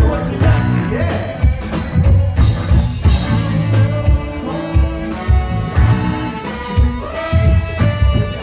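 Live funk band playing: bass line and drums with voices singing over it.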